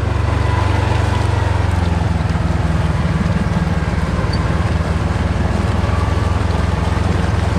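Kawasaki Teryx KRX4 1000 side-by-side's parallel-twin engine running steadily at trail speed: a constant low drone.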